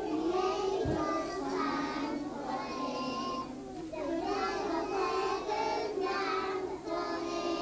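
Young children singing a song together, holding sustained notes in phrases.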